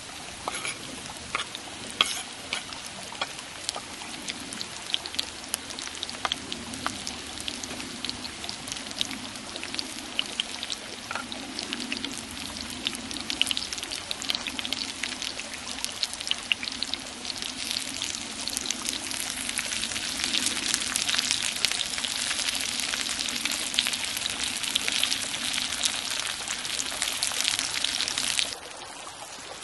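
Food frying in a pan over a campfire: a dense sizzle full of small crackles and pops, growing louder in the second half, cut off abruptly near the end.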